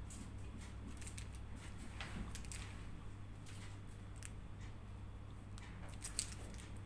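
Faint crinkling and clicking of a piping bag squeezed by hand while buttercream is piped, with one sharper click about six seconds in, over a steady low hum.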